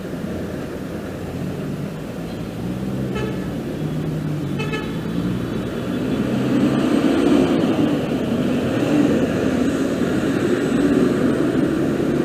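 Motorcycle engine running in road traffic, with engine sound that grows louder and rises about halfway through. Two short horn toots sound about three seconds in and again a second and a half later.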